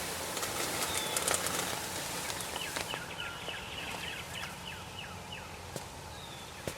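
A bird calling a rapid run of short falling notes, about five a second, from about two and a half seconds in until about five and a half seconds in, over wind noise and small rustles.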